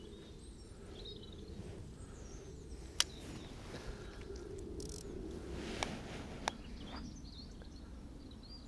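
Outdoor ambience by open water: birds chirping faintly over a steady low rumble, with three sharp clicks, the loudest about three seconds in.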